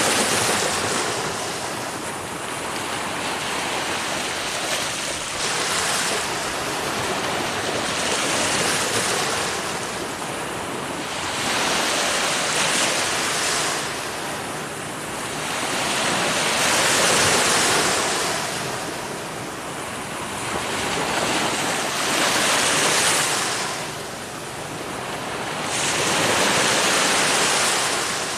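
Ocean surf: waves breaking and washing in, the rush swelling and fading about every four to five seconds.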